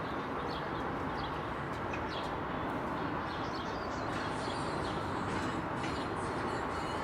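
Small birds chirping over a steady background noise.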